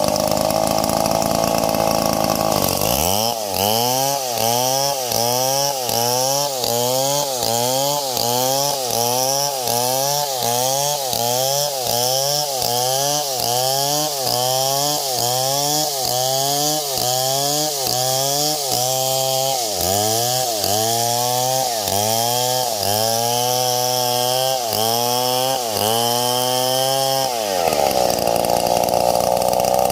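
Two-stroke chainsaw held at high revs. After about three seconds it is revved up and down again and again, roughly once a second, then held at high revs again near the end.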